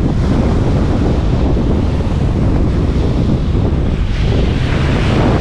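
Strong wind buffeting the microphone over the wash of surf on the beach, with a wave's rush swelling up near the end.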